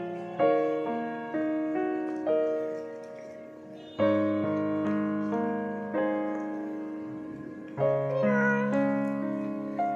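Background piano music: single notes and chords struck about once a second and left to ring and fade. Near the end a cat meows briefly over the music.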